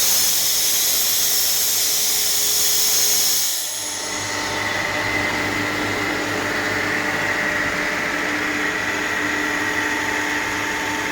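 Renner RS Top rotary screw air compressor running with a loud hiss of air that cuts off abruptly about three and a half seconds in, after which the machine runs on with a steady hum and a whine of several fixed tones.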